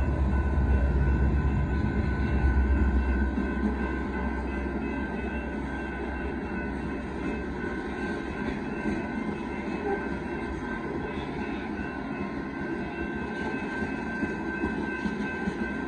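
Loaded freight cars of a Union Pacific rock train rolling past at a grade crossing: a continuous rumble and rattle of steel wheels on the rails, with steady high tones over it. It is heaviest and loudest in the first few seconds, then settles a little quieter.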